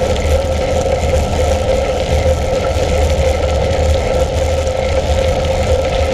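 Riding noise of a bicycle on a gravel path: tyres rolling and wind rushing over the handlebar-mounted camera's microphone, with a steady hum underneath.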